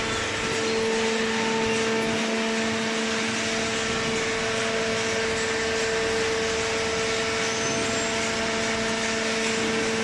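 Hydraulic waste-paper baler's power unit, its electric motor and hydraulic pump, running steadily: a constant hum with a steady whine over a hiss.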